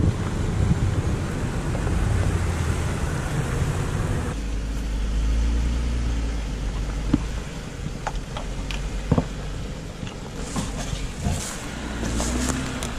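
Jeep Wrangler engines running at low speed as they crawl a rocky off-road trail, with a steady low rumble and a few sharp knocks. The sound changes abruptly about four seconds in.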